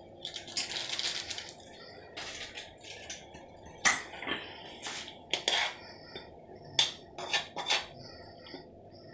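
Steel spoon and ladle clinking and scraping against an iron kadai of simmering noodle soup: a short scraping stretch near the start, then a string of sharp knocks and taps, over a steady low hiss.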